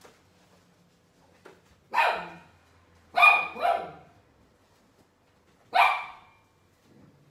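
A dog barking four times: one bark about two seconds in, two quick barks a second later, and one more near the end.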